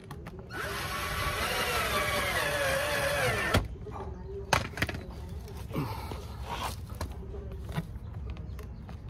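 Power drill driving a screw into the plastic front bumper lip. It runs for about three seconds, its pitch sliding down as it loads up, then stops suddenly. A few clicks and a second short run follow about two seconds later.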